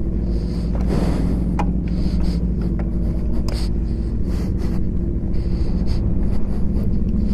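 Motorcycle engine running steadily at low revs, likely the 2015 BMW S1000RR's inline-four, heard through a helmet microphone with wind hiss and scattered short clicks.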